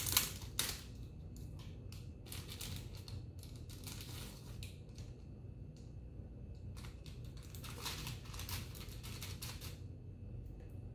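Foil snack pouch being torn open and crinkled by hand, in bursts of crackly rustling at the start, for a few seconds soon after, and again about eight seconds in as the chip is drawn out of the pouch.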